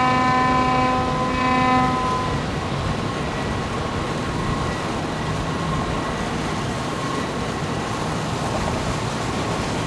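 A steady horn blast sounds and cuts off about two seconds in. It is followed by a steady rumble and wash from a motorboat passing close by.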